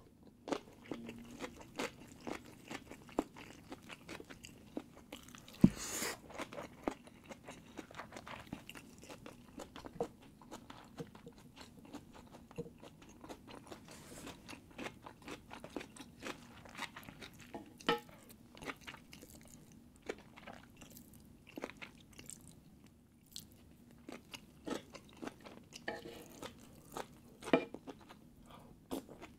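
Close-miked mouth sounds of a person eating steamed sea bass: steady chewing with wet smacks and many small clicks. A sharper knock comes about six seconds in.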